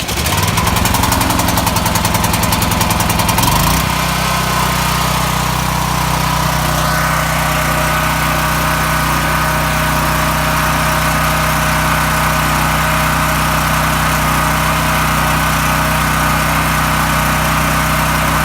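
Champion 9200-watt generator engine running on its first start after an oil change, choke set. It pulses unevenly for the first four seconds or so, then settles into steady running.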